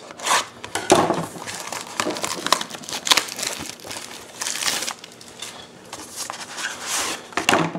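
Wrapping on a sealed box of trading cards crinkling and tearing as the box is opened by hand, in irregular bursts.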